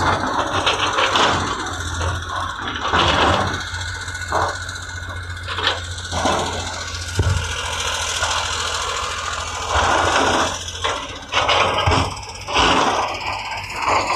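Heavy diesel construction machinery running with a steady low engine hum, with irregular metallic knocks and clatter from the work breaking in every second or two.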